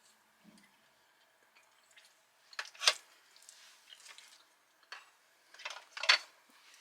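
Wet eating sounds of someone taking a mouthful of soft bean pasta salad: a few short squelches and mouth smacks with quiet gaps, the loudest about three seconds in and again near the end.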